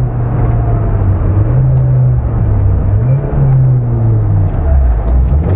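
Opel Corsa A GSI rally car's four-cylinder engine pulling hard at speed, heard from inside the cabin. Its pitch climbs and falls several times as the car goes through the gears and lifts, dropping lowest before a bend near the end.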